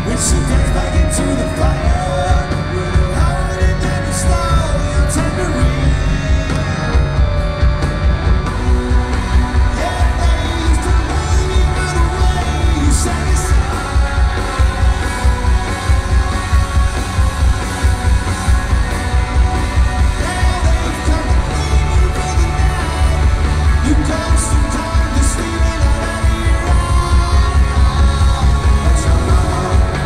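Live rock band playing a song at full volume, with electric guitars, bass, drums and lead vocals, heard from within the audience with a heavy, steady beat.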